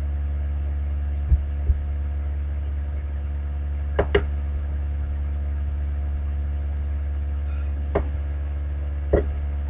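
Steady low electrical mains hum picked up by the microphone, with a few computer mouse clicks over it, including a quick double click about four seconds in.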